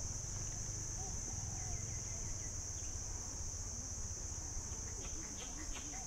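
Steady high-pitched drone of insects calling, with a few faint short chirps and a quick run of clicks a little before the end.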